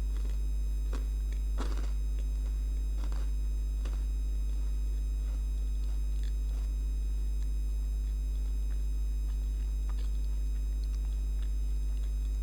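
Electrical buzz from a light fixture: a steady low hum with higher overtones, unchanging throughout. A few faint taps sound in the first few seconds.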